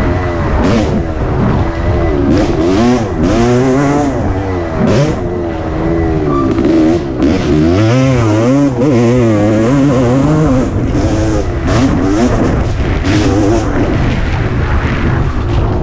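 1988 Suzuki RM250's single-cylinder two-stroke engine being ridden hard on a rough dirt track, its pitch rising and falling again and again as the throttle opens and closes through corners and straights, with short rushes of noise over the top.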